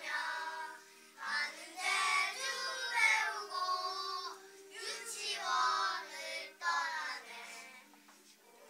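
A group of young children singing a graduation song in unison over an instrumental accompaniment, in phrases with short pauses between them.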